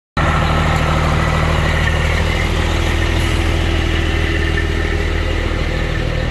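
Heavy-duty wrecker's diesel engine idling steadily and loudly. It cuts in abruptly just after the start.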